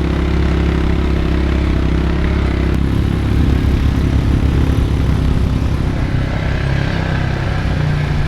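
ATV engine running, its engine speed shifting a few times.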